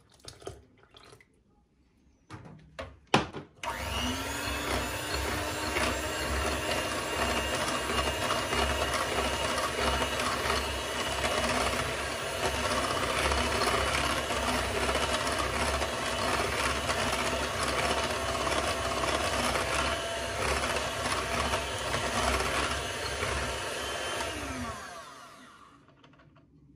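A small electric motor, like that of a household appliance, starts after a few clicks. It spins up quickly, runs steadily with a whining tone for about twenty seconds, and winds down with a falling pitch near the end.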